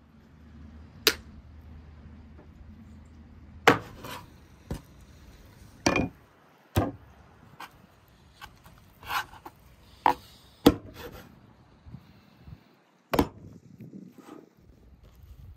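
Knife cutting and chopping raw turkey on a bamboo cutting board: about ten sharp, irregular knocks of the blade striking the wood, with softer sounds of cutting between them.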